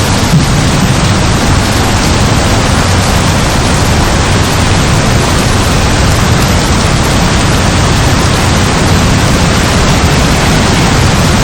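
Heavy rain falling steadily, a dense unbroken hiss with a deep rumble underneath.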